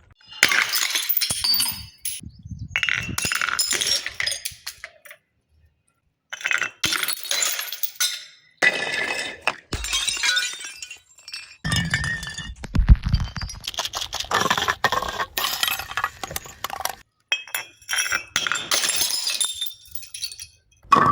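Glass bottles shattering and crunching in about seven separate bursts with short pauses between, the glass clinking as it breaks; one burst about twelve seconds in carries a heavy low thud.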